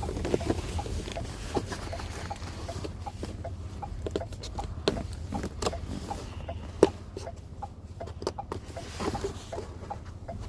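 Scattered clicks, taps and light rustles of a toy package being handled and worked open, over a steady low hum.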